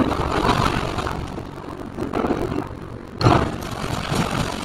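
Excavator engine running under load as its bucket breaks down a brick chimney, bricks and masonry crumbling and falling, with a loud crash about three seconds in.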